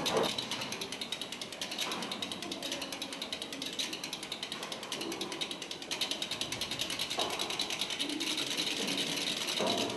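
Rapid, steady mechanical clicking, many clicks a second, like a ratchet or small gear mechanism running.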